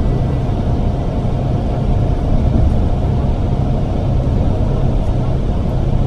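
Steady low rumble of engine and road noise inside a moving bus's cabin.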